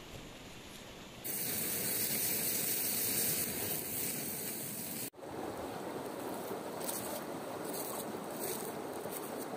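Rushing stream water, a steady noise that jumps louder about a second in and drops out for an instant about five seconds in before running on.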